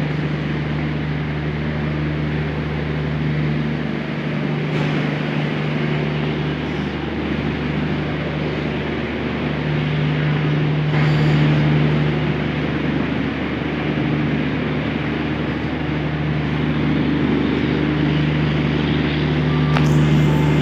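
Steady mechanical engine drone: a constant low hum under a noisy hiss, swelling slightly now and then.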